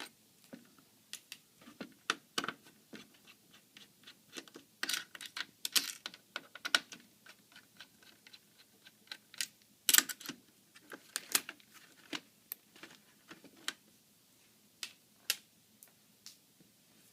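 Irregular small clicks and taps of a screwdriver and plastic and metal laptop parts being handled, as hinge screws are taken out of the screen assembly of a Dell Inspiron 15z. The louder taps come in clusters around a third of the way in and again past the middle.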